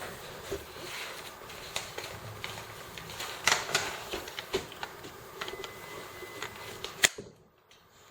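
Irregular clicks, taps and knocks of a cordless impact wrench and its plastic parts being handled, with one sharp click about seven seconds in.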